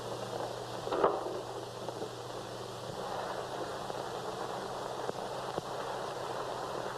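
Steady hiss of an old optical film soundtrack with a low hum that stops about three seconds in, and one short noise about a second in.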